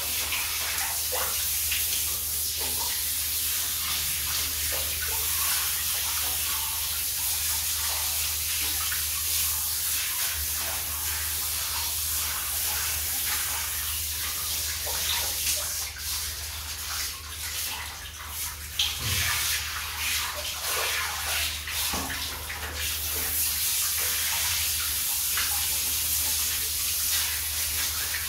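Water spraying from a hand-held shower head onto a puppy's wet coat and splashing onto plastic floor grates: a steady hiss that turns uneven for several seconds past the middle.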